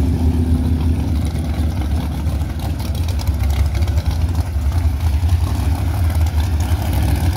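Drag-race Camaro's engine idling loudly and steadily, with a rapid uneven pulse and no revving.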